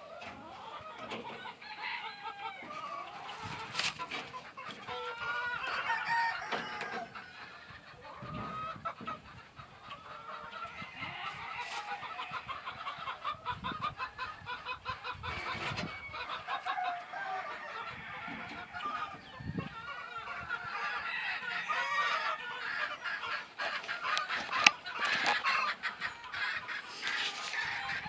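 Chickens clucking continuously, with rooster crowing now and then. A few knocks come through as the hinged wooden-and-corrugated-metal lid of a boot-bath box is lifted and propped, with one sharp knock near the end.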